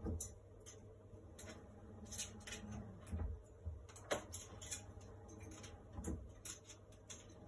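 Scattered light clicks and taps of an African grey parrot's beak and claws gripping a metal stand pole as it climbs down, with a louder knock about four seconds in.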